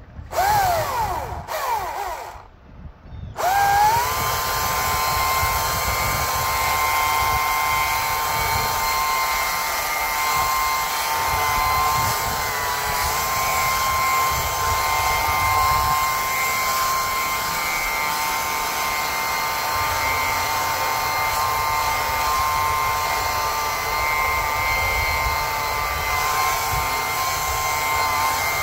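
Small high-speed motors whining steadily, several close tones together, after brief rising spin-ups near the start.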